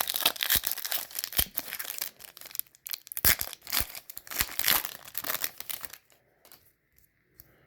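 A plastic trading-card pack wrapper being torn open and crinkled in the hands, a dense crackling that stops about six seconds in.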